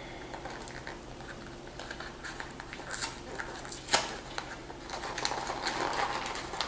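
Cardboard box of Jiffy cornbread mix being worked open by hand: scattered paper crinkling, rustling and tearing with small clicks, one sharper snap about four seconds in and busier handling near the end.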